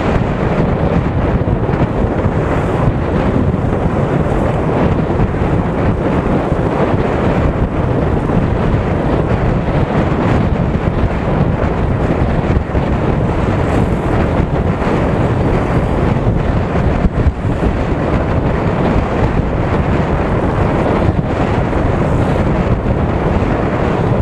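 Loud, steady wind rush on the microphone of a camera riding on a moving motorcycle, with the bike's engine and road noise underneath.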